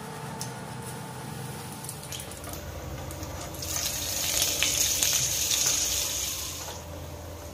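Cumin seeds and a knob of butter sizzling in hot oil in a frying pan, a tempering (tadka), with scattered crackles. The sizzle swells about three seconds in and stops shortly before the end.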